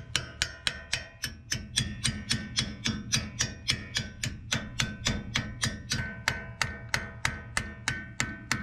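Small hammer tapping steadily on a brake caliper's retaining wedge (caliper key), about four sharp metallic taps a second, each ringing briefly, driving the wedge in until its bolt hole lines up with the groove.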